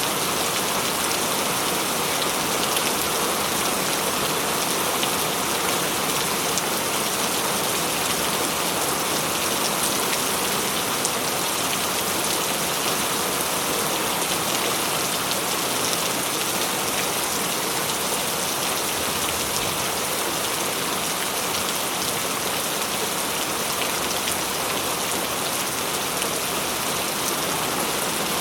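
Steady, heavy rain falling, a dense even patter of drops with no let-up and no thunder.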